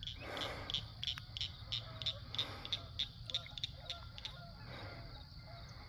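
Faint outdoor ambience: a small animal's high chirp repeating about three times a second, stopping about three and a half seconds in, over a low steady hum.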